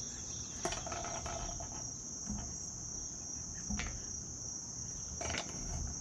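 Insects chirring steadily at a high pitch, with a few faint metallic clicks as a bolt and washer are turned by hand into a spring nut in steel strut channel.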